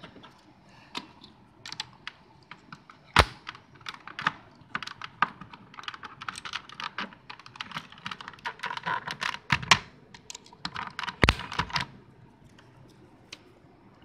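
Mechanical keyboard with clicky blue switches being typed on: quick, uneven key clicks, densest in the middle and thinning out near the end, with two heavier knocks, one about three seconds in and one about eleven seconds in.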